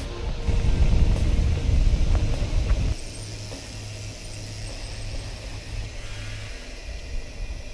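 Wind buffeting and tyre rumble on an action camera riding along on a mountain bike, heaviest in the first three seconds on a gravel trail, then quieter on smooth pavement.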